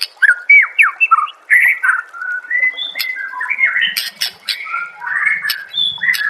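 Songbird song in a rapid, unbroken string of varied notes: clear whistles, quick downward glides, short trills and sharp chirps.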